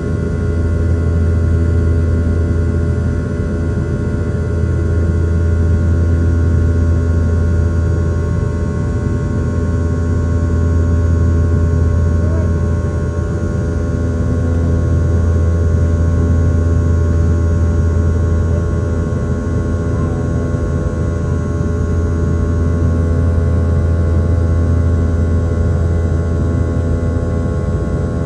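Steady cabin drone of a Boeing 717-200 in flight, its tail-mounted Rolls-Royce BR715 turbofans giving a deep rumble with several steady tones on top, swelling and easing slightly.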